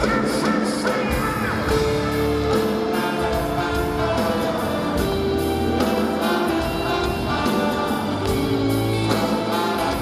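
Live band music played loud over concert speakers, with sustained chords that change every few seconds over drums and choir-like voices, recorded from within the audience.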